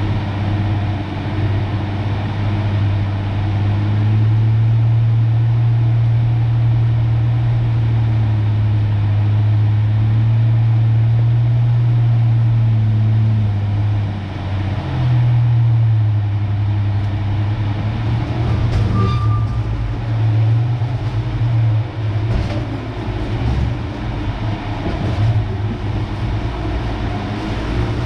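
1993 Ford Ranger pickup driving a rough dirt trail: a steady low engine drone that dips and picks back up about halfway through, then runs more unevenly with scattered knocks and rattles.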